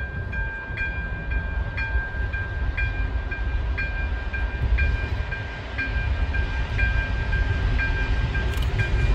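ČD class 749 diesel locomotive running as it approaches with a passenger train, its engine a low, steady rumble. Over it is a high electronic ringing that pulses about twice a second, with a few sharp clicks near the end.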